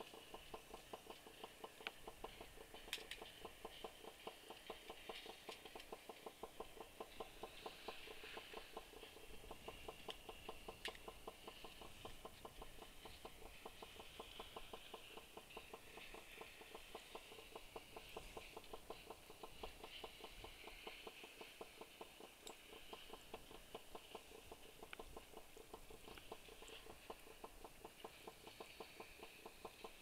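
Near silence, with a faint, rapid, even ticking.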